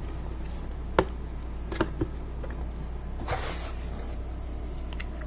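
Box parts being fitted together by hand: a few sharp clicks and knocks, then a brief rustling swish, over a steady low hum.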